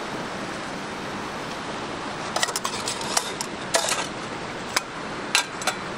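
Scallops and black sea bream grilling over charcoal: a steady sizzling hiss, with scattered crackles and pops from about two seconds in.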